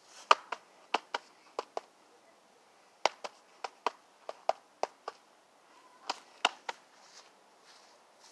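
A string of short, sharp clicks and taps coming irregularly in clusters, several a second, with the loudest just after the start and again near the middle and the end.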